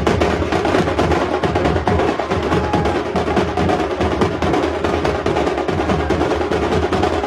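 Dhol and tasha drums played together in a fast, dense rhythm that runs without a break.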